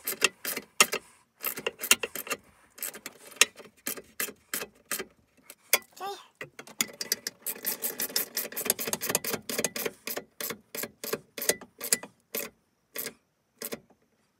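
Hand socket ratchet clicking in quick runs as bolts are snugged down, fastening a steel console safe into the console. The clicks thin out near the end and stop.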